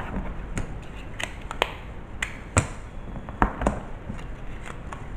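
Paper and card being handled while double-sided tape is put on a scalloped paper strip: about ten short, sharp clicks and taps at irregular intervals.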